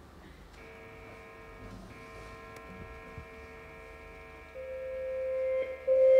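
A soft held chord of sustained instrument tones. It enters about half a second in and holds steady, then a louder note swells in about four and a half seconds in and another joins near the end, as a slow opening of a jazz piece.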